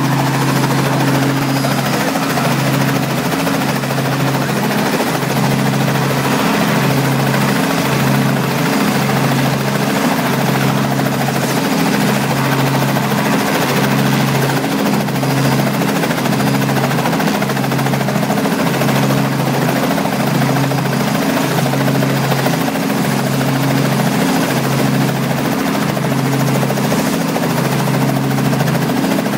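Robinson R44 Raven helicopter running on the ground, its piston engine and turning main rotor making a loud, steady drone that pulses slowly.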